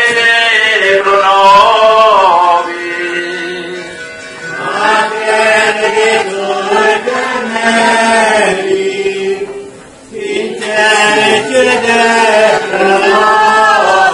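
Members of a candlelit religious procession singing a slow chanted hymn together, in three long, drawn-out phrases with short breaks between them.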